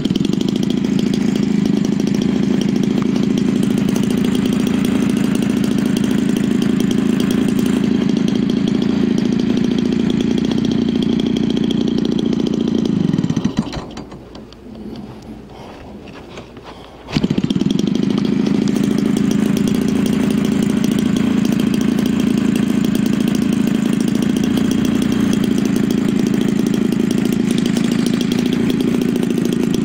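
Homelite 30cc two-stroke engine, converted for an RC model plane, running loudly at high throttle while spinning a propeller. About thirteen seconds in it slows to a quiet idle, and about four seconds later it snaps back up to full throttle and holds there.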